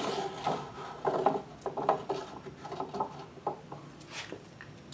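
Scattered light clicks, knocks and rubbing as a metal drop-test bar is hoisted by its cord and held up inside a PVC guide pipe.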